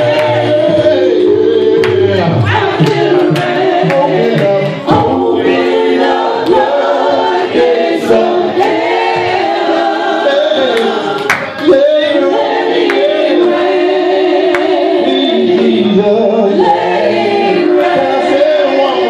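A church congregation singing a gospel song together, many voices with a man leading into a microphone. A few sharp knocks or claps cut through about five, eight and eleven seconds in.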